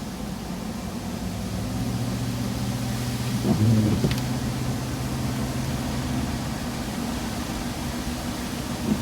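Truck engine and road noise heard from inside the cab while driving, a steady low hum. A brief louder sound comes about three and a half seconds in, followed by a small click.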